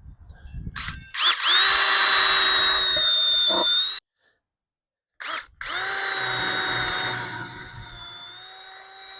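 Power drill boring into a wooden fence post with a paddle bit: the motor spins up about a second in and runs steadily, cuts off abruptly, then runs again with its whine sagging a little as the bit bites into the wood.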